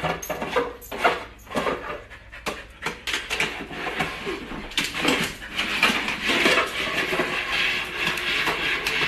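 A dog scrabbling on a hard floor with a plastic dish: claws and dish knocking and clicking at first, then scraping along steadily from about halfway through.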